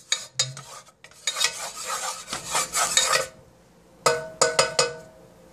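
Wooden spoon stirring and scraping around a stainless steel saucepan holding a little hot oil, then about four sharp taps against the pan, each with a short metallic ring, a little after four seconds in.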